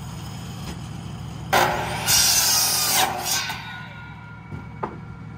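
Electric miter saw cutting through pine 2x4s for about two seconds, starting sharply and then fading as the blade winds down. A couple of light wooden knocks follow. A steady low hum runs underneath throughout.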